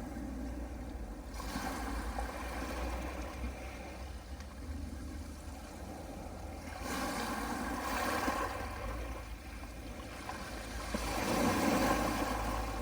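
Soft sea waves washing onto a pebble beach. There are three swells of hiss: one early, one around the middle and the loudest near the end, over a steady low rumble.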